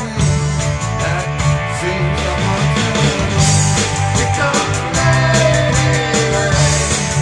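Rock band playing: electric and acoustic guitars over drums and a steady bass, with a man singing a line of the song.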